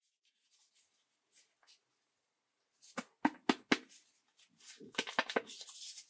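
A strip of fine-weight Opstrip polyester fabric rustling and crinkling as it is handled in the hands. There are faint rustles at first, then about four sharp crinkly snaps around three seconds in, and a dense crackling near the end as the strip is flexed and pulled.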